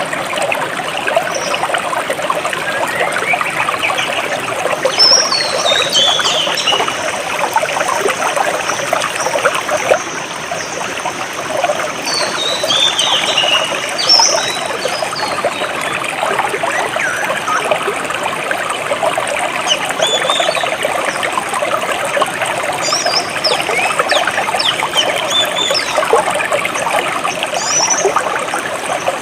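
Small jungle stream trickling and gurgling steadily over stones, with birds calling above it: a falling run of chirps about five seconds in and again about twelve seconds in, then scattered short chirps in the last third.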